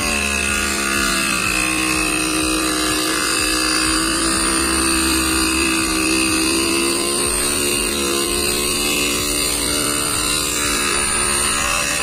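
Homemade 775 DC motor drill spinning a small cutting disc in its chuck, sawing a slot into a wooden stick: a steady high whine that dips a little in pitch in the first second as the disc bites, then holds level.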